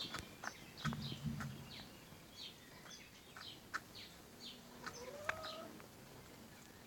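Domestic chickens in a flock: low clucks about a second in and a brief rising call about five seconds in, over a run of short, high, falling chirps.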